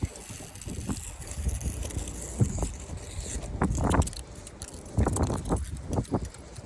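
Irregular knocks and rattles over a low rumble while walking outdoors, with clusters of clatter in the middle and near the end.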